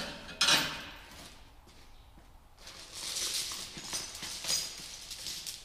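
Steel chain links clinking and rattling as chains are handled and hung over a metal bar, with a louder clatter about half a second in and scattered lighter clinks after.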